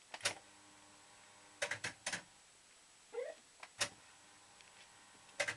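Maygay Moon Bug fruit machine in play: sharp mechanical clunks from the reels and mechanism, several in a quick cluster about two seconds in, with a steady hum for about a second early on and a short rising electronic bleep just after three seconds.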